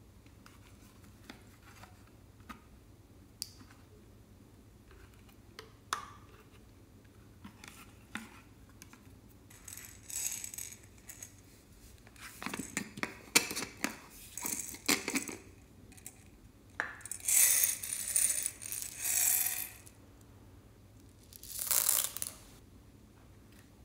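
Faint sticky clicks of slime squeezed from a bottle, then four rattling bursts of small plastic beads shaken out of a plastic container and pattering onto slime in a glass dish.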